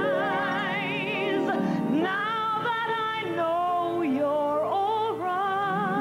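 A female pop vocalist sings long held notes with wide vibrato and sliding, ornamented runs, over her own grand piano accompaniment.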